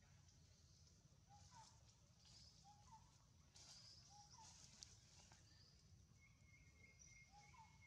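Near silence: faint forest ambience. A steady high insect hum runs throughout, a bird gives a short rising call four times, and there are a few soft clicks and rustles, with a quick run of faint ticks near the end.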